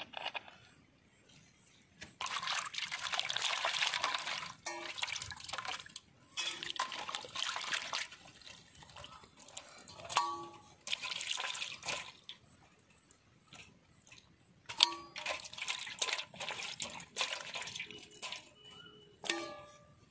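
Water poured and splashed over whole tilapia in a stainless-steel basin for their final rinse after salting, in four bursts of a few seconds each. The steel basin clinks and rings now and then as the fish are handled.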